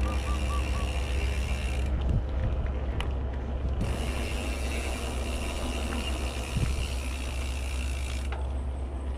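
Mountain bike's rear freehub clicking rapidly as the rider coasts, over the rumble of tyres on a paved path and wind on the microphone.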